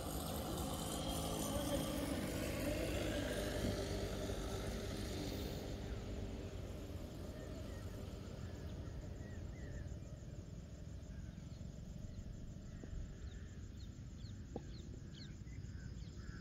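Open-air evening ambience: a steady low rumble, louder over the first few seconds and then easing off, with birds chirping in short calls through the second half.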